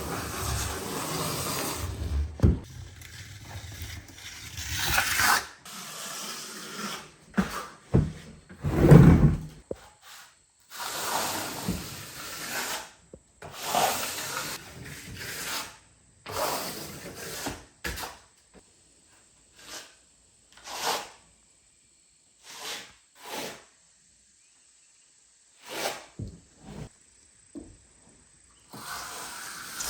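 Intermittent rubbing and scraping strokes with scattered knocks and a loud thump about nine seconds in, growing sparser in the second half.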